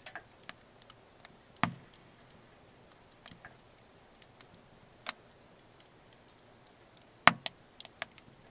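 Wood fire crackling in a wood stove's firebox, scattered sharp pops from the burning logs, with two louder pops, one under two seconds in and one near the end.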